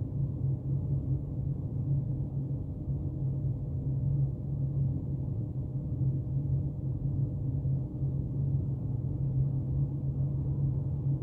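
A steady low background hum and rumble with an even drone and no separate events.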